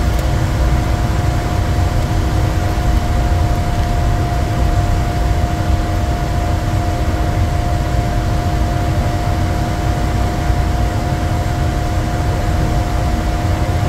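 Steady interior noise of a Bombardier Challenger 350 jet on approach: a deep rumble of airflow over the fuselage and its twin Honeywell HTF7350 turbofans, with two steady hums running over it.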